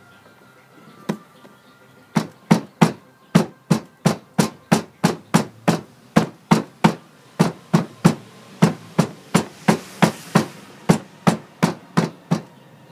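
A hammer striking foundry sand in a mold frame, ramming it down to pack the mold firm for sand casting. One blow about a second in, then a steady run of strikes at about three a second.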